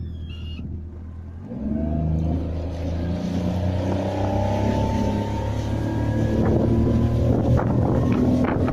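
Mercury F40 EFI tiller outboard pushing an aluminium boat. Its engine note steps up about a second and a half in, then climbs slowly as the boat gathers speed. Wind on the microphone grows, buffeting near the end.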